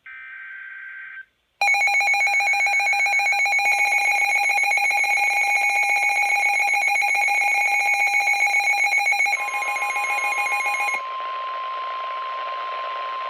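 Emergency Alert System weather-radio alert tones. The last burst of the SAME digital header comes first, a short buzzing screech, and then a loud, rapidly pulsing electronic alarm beep starts. Near the end the beeping stops and a steady single warning tone, the NOAA Weather Radio 1050 Hz alert tone, carries on; it signals that a warning message follows.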